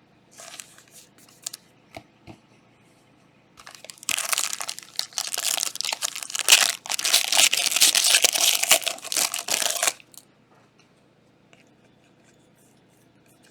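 Plastic trading-card pack wrappers being torn and crumpled by hand: a loud, dense crinkling that starts a few seconds in and lasts about six seconds, with a few light clicks of card handling before it.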